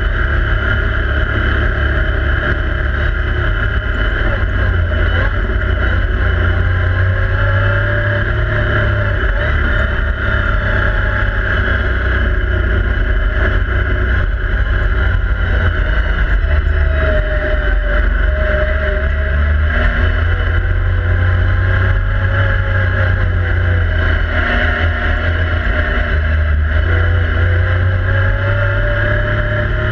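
Yamaha YXZ1000R SS side-by-side's three-cylinder engine running under load while driving a dirt trail, heard from inside the cab. Its pitch rises and falls repeatedly as the throttle comes on and off, over a heavy rumble.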